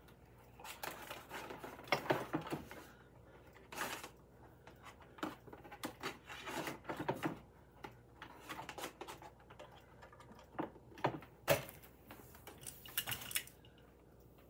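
Cords and a plastic plug being handled behind a desk as a power cord is pushed into a power strip: scattered clicks, knocks and rustling, with a sharper click about eleven and a half seconds in.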